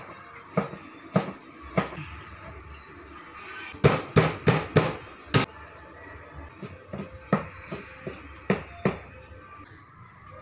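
Large kitchen knife chopping vegetables on a wooden cutting board: sharp knocks of the blade hitting the board. There are a few spaced knocks at first, a quick run of about five chops around four to five seconds in, then lighter knocks.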